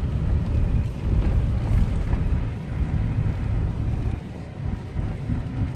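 Toyota Land Cruiser 80 series (FZJ80) driving along a paved road, heard from inside the cabin: a low, uneven engine and road rumble, with wind buffeting the microphone.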